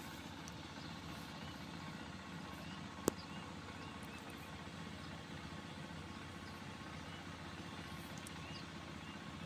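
A cat eating, with faint chewing over a steady outdoor hiss, and one sharp click about three seconds in.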